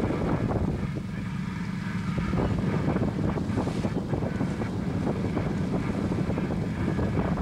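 Wind buffeting the microphone aboard a sailboat under way, with a steady low hum underneath.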